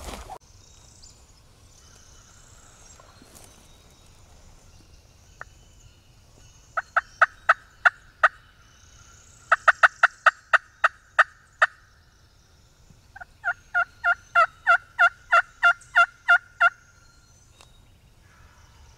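Turkey yelping in three runs of evenly spaced, clear yelps at about four a second; each run is longer than the last, the third running about three and a half seconds.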